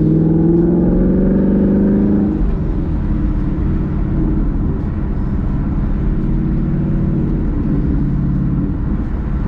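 2018 Ford Mustang GT's 5.0 L Coyote V8 with an AWE Touring cat-back exhaust, heard from inside the cabin while driving. The engine note rises for about two seconds, then drops back about two and a half seconds in, as with an upshift of the six-speed manual, and runs on steadily with a deep low rumble.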